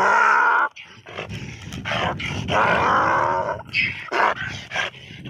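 Two donkeys fighting, giving harsh screaming cries: one at the start, a long one of over a second in the middle, and a short one near the end, over a low rumble.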